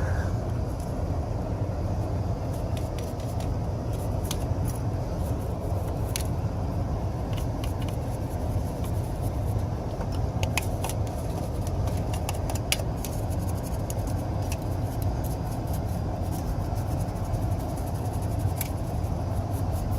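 Rooftop HVAC unit running with its blower on and the gas heat firing: a steady low rumble, with a few light clicks and taps.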